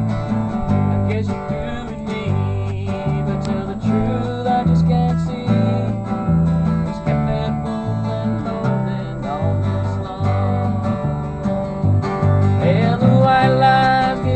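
Acoustic guitar strumming a country tune over steady alternating bass notes, with a second stringed instrument playing along. Near the end a note slides upward.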